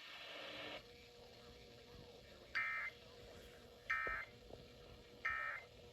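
Three short electronic beeps from a weather alert radio, evenly spaced about 1.3 seconds apart, over faint radio hiss and a low steady hum.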